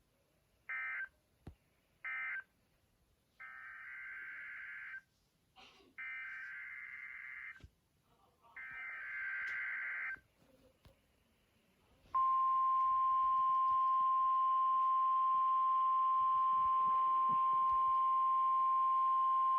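NOAA Weather Radio emergency signalling: two short SAME digital data bursts (the end-of-message codes closing one test), then three longer SAME header bursts of warbling data noise, each about a second and a half long, announcing the next weekly test. About twelve seconds in, the steady single-pitch 1050 Hz warning alarm tone starts and keeps sounding.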